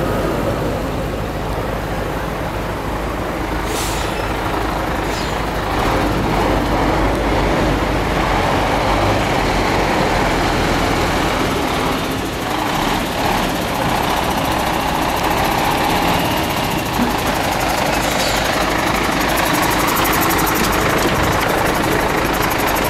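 Mercedes-Benz R107 500SLC AMG's V8 running at a steady idle, heard close to the exhaust.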